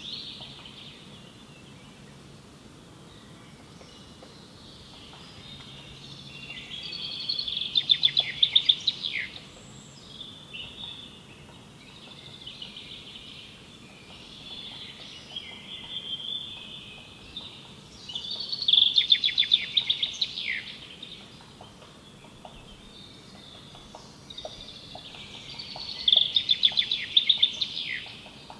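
A songbird nearby singing the same short, rapid trilled phrase that ends in a downward slur, three times, with fainter twittering between the phrases.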